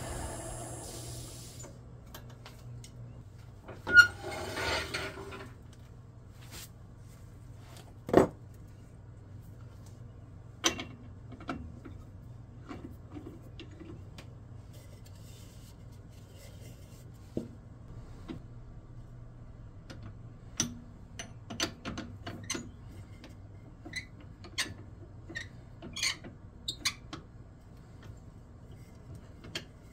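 A wooden lathe-turned bowl being handled on a stopped wood lathe: a hard knock and a short scrape, another sharp knock, then a run of light clicks and taps of wood against the metal chuck and lathe parts, over a low steady hum. The turning noise of the tool cut fades out in the first second.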